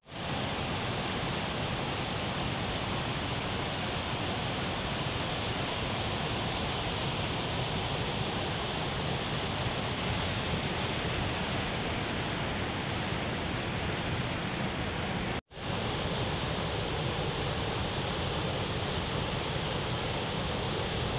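A fast, rough mountain beck rushing and churning over boulders in white-water cascades, a steady full rush of water. It drops out for an instant about fifteen seconds in, where one clip cuts to the next.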